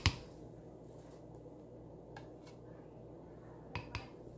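Quiet room tone broken by light clicks: one right at the start and two close together near the end. The clicks are a tin can knocking against a blender jar's rim as sweetened condensed milk is poured from it.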